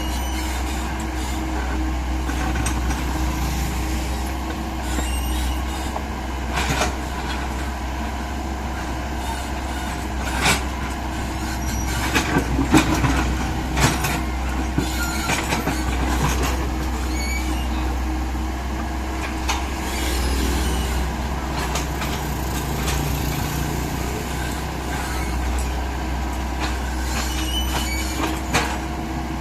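Excavator's diesel engine running steadily under load, with scattered sharp metallic knocks and clanks, the loudest cluster about halfway through.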